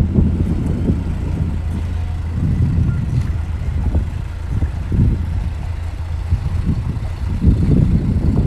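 A steady low engine hum under uneven wind rumble on the microphone. The hum fades out about seven seconds in.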